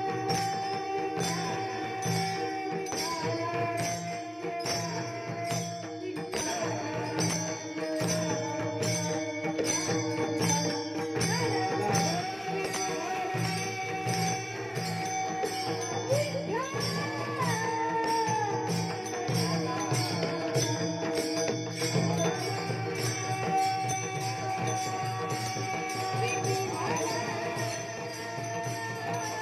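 Marathi Warkari devotional music: a held, drone-like melody with gliding melodic phrases over a steady beat of small jingling cymbals.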